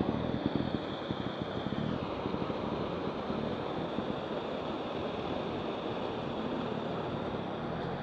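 Stream water rushing steadily over rocks in a small cascade.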